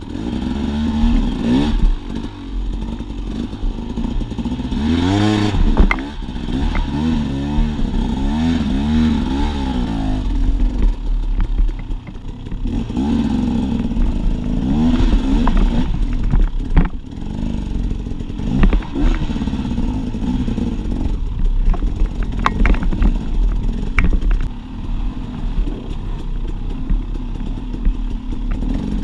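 Dirt bike engine revving up and down over and over as the bike picks its way over rock ledges, with scattered knocks and clatter from the bike over the rocks.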